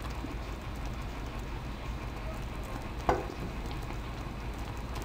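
Thick milk-and-sugar cajeta bubbling steadily in a stainless steel pot as a wooden spoon stirs it, with a single knock about three seconds in. The mixture is well along in cooking and thickening toward jamoncillo.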